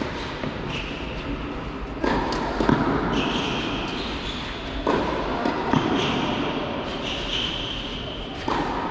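Tennis rally: racket strikes on the ball about every three seconds, with a lighter ball bounce after some of them, echoing in a large indoor hall.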